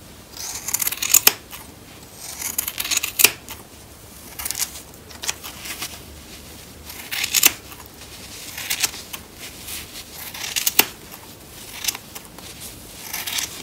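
Large steel fabric scissors cutting through thick woolly fleece. There is a crunching snip every second or two, several of them ending in a sharp click.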